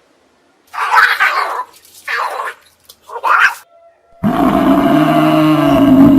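Animal calls: three short cries, then one long, low, pitched call that begins a little past the middle and carries on to the end.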